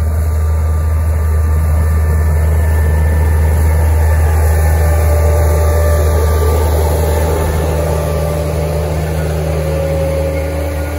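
Farm tractor engine running steadily as it pulls a seed drill through the field, a continuous low drone that eases a little near the end.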